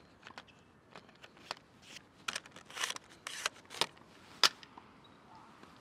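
Quiet rustling and clicking of a foam toy glider being handled and fitted to its plastic pistol launcher, then one sharp snap about four and a half seconds in as the launcher fires the plane.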